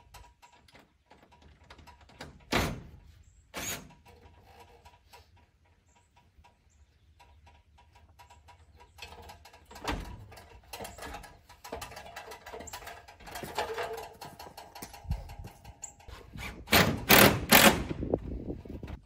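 Scattered knocks and clanks from handling saw blades on an aluminium extension ladder against steel barn siding, with a cluster of louder clanks near the end as a blade is set against the wall.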